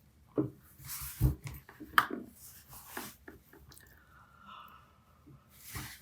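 A young woman's close-up mouth noises between yawns: scattered wet lip smacks and tongue clicks, with a breath drawn near the end.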